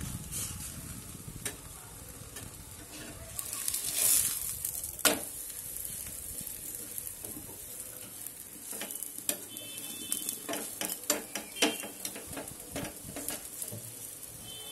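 Methi paratha frying in a little oil on a nonstick tawa over medium heat: a steady sizzle. A spatula presses and scrapes it against the pan, giving sharp clicks and taps, with one loud tap about five seconds in and a run of them between nine and thirteen seconds.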